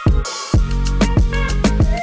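Electronic background music with a steady drum beat and a bass line, with a short drop in the beat just after the start.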